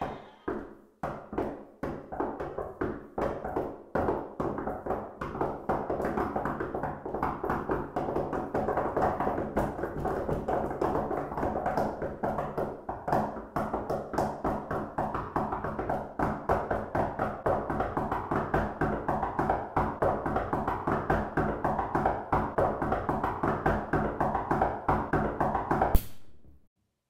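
A pencil tapped against a wooden desktop, slowly at first and speeding up into a fast, steady run of taps over a low sustained musical tone. Near the end comes one sharp crack as the pencil snaps, and the sound cuts off.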